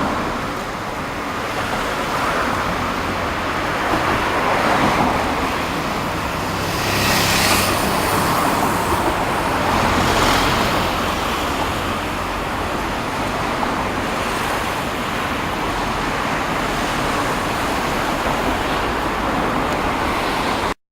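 Surf breaking and washing on the beach, a continuous rushing that swells and falls every few seconds, left high by a passing typhoon. The sound cuts off abruptly just before the end.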